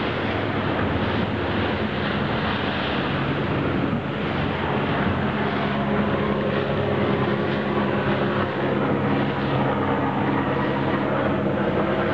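Motorboat engine running steadily under way, with the rush of water and wind noise over it.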